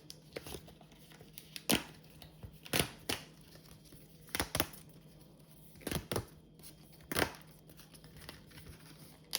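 Packaging being torn and crinkled by hand: a string of short crackles a second or so apart.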